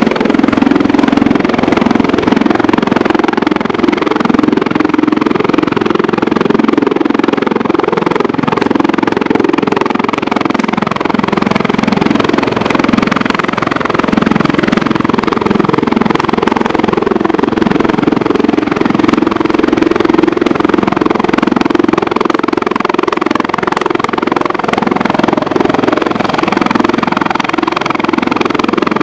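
Finnish Border Guard twin-turbine rescue helicopter hovering close by while it winches a rescue swimmer. The rotor beat and engine sound stay loud and steady.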